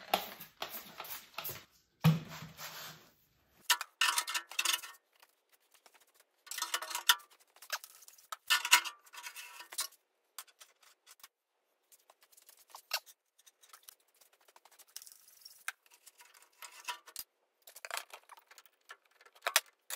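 Irregular clinks, knocks and short scrapes of metal lathe parts and hand tools being handled and worked during disassembly.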